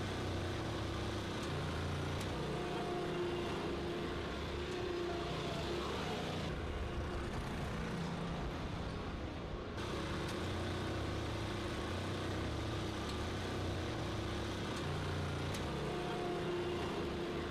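Steady low-level machinery hum and hiss with faint tones that come and go. The treble dulls for about three seconds partway through.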